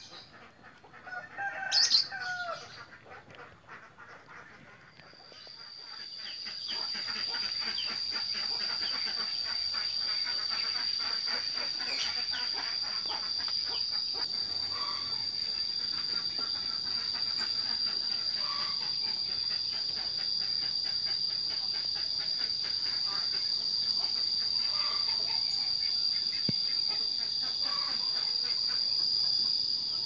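A short, loud bird call about two seconds in. Then a steady, high-pitched insect drone with a fast pulse sets in and carries on, with faint short bird calls repeating every three to four seconds.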